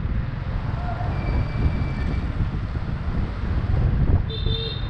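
Wind buffeting the microphone over the low rumble of a motorbike riding through a street with scooter traffic. A brief high-pitched tone sounds near the end.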